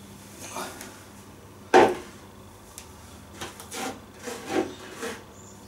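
Green plastic bucket handled and set down on a kitchen worktop: one sharp knock about two seconds in, then a few softer knocks and rubbing as it is moved into place.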